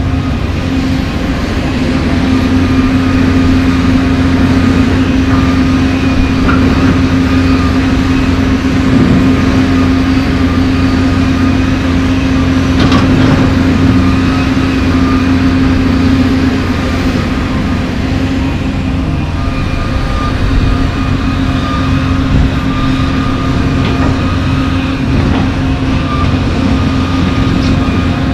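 John Deere 350D LC excavator's diesel engine running steadily as the machine swings and digs into a pile of broken asphalt, with a few clunks of asphalt chunks in the bucket, the loudest about halfway through.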